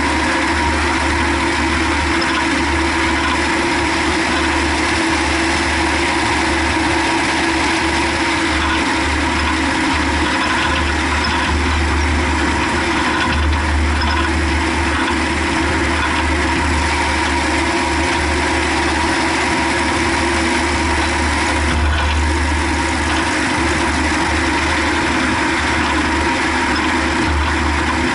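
Car being driven, with steady engine, drivetrain and road noise and a low rumble that swells and fades.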